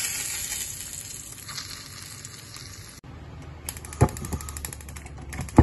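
Hot oil sizzling in a frying pan just after the fried salmon has been lifted out, fading over about three seconds and then cutting off suddenly. Then two sharp knocks, the second one louder.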